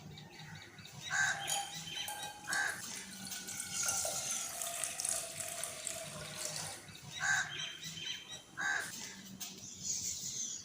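Water pouring or running, with birds chirping now and then in the background.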